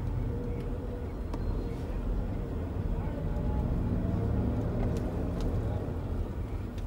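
Steady low rumble of a car driving slowly in stop-and-go town traffic, heard from inside the cabin, with faint, indistinct voices from the street.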